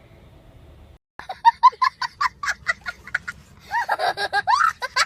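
A person laughing hard in rapid 'ha-ha-ha' pulses, about seven a second, starting about a second in after a brief cut to silence. Near the end it turns into higher, wavering squeals of laughter.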